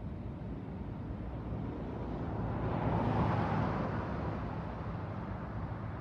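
A pickup truck driving past close by: its tyre and engine noise swells to a peak about halfway through, then fades as it drives off. A steady low rumble runs underneath.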